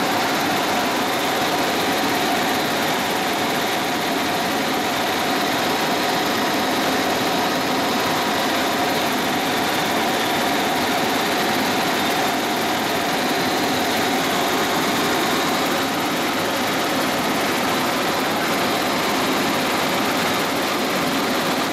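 Helicopter in flight heard from inside the cabin: steady engine and rotor noise, an even rush with a faint steady whine over it.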